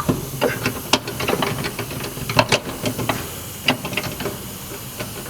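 Irregular metallic clicks and clinks of hand tools being worked and handled on a car, over a steady low hum.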